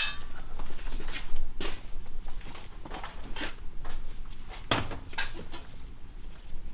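Short, irregular scratches of a pencil drawing tick marks on the paper face of a drywall sheet overhead, with a sharp click right at the start.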